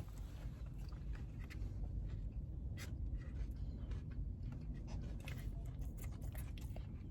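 Someone biting into and chewing a crispy fried chicken sandwich: scattered small crunches, more frequent in the second half.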